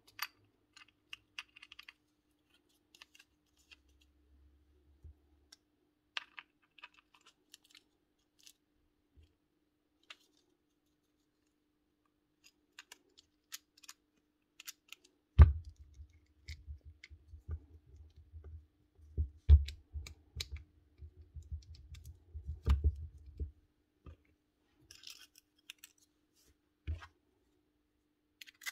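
Small plastic and metal parts of a cordless drill's gearbox clicking and tapping as they are handled and fitted back together. About halfway through comes a denser run of louder knocks and bumps that lasts several seconds.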